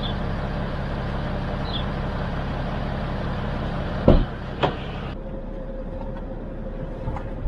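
Semi-truck diesel engine idling steadily. About four seconds in come two short knocks, after which the sound turns more muffled.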